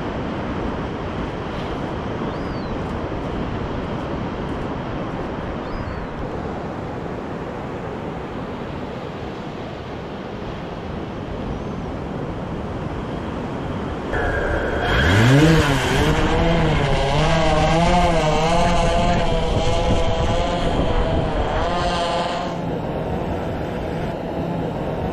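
Surf and wind, then about fourteen seconds in a fishing drone's motors spin up with a quick rising whine. The drone then flies with a steady propeller buzz that wavers in pitch as it carries the bait out, and the buzz fades about eight seconds later.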